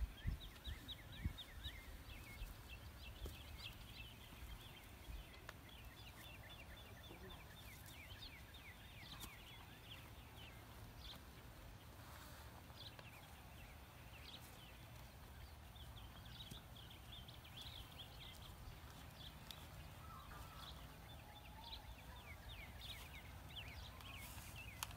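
Faint outdoor quiet with small birds chirping repeatedly in the background, short high downward chirps, over a low steady rumble. A few low thumps in the first second or so.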